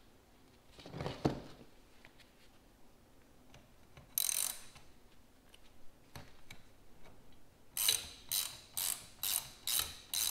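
Ratchet wrench clicking as it runs down the 19 mm top nut on a Bilstein 5100 shock shaft, in strokes about two a second near the end. Before that there is a faint knock of handling and a brief rattle.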